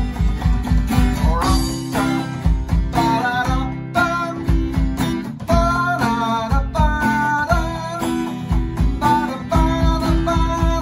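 A man singing over a strummed acoustic guitar, with an electronic drum kit keeping a steady beat.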